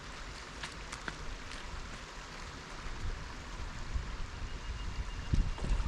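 Shallow river water running steadily with a fine, even hiss, with a few faint clicks and some low rumbling thumps near the end.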